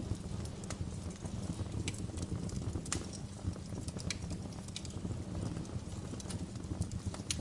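Wood fire crackling in a fireplace: a steady low rumble of the flames with irregular sharp pops and snaps.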